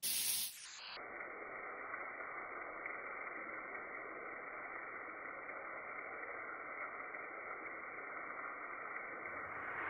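Rain shower head running, water falling into a tiled shower: a steady hiss, after a brief louder rush at the very start.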